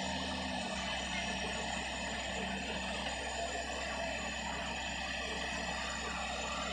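Excavator diesel engine running steadily with a constant low hum.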